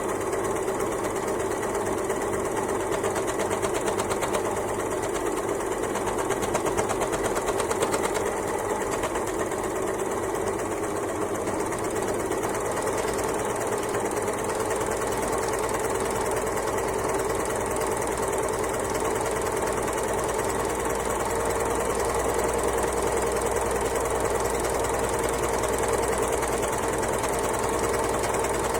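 Overlocker (serger) sewing machine running steadily at speed, a fast even clatter of needles and loopers over a constant motor hum.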